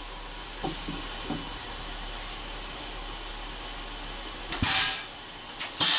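Compressed air hissing steadily from a Serdi 100 valve-seat machine's air-float system as the work head floats free to center on the valve-guide pilot, with sharper bursts of air about a second in and again near the end.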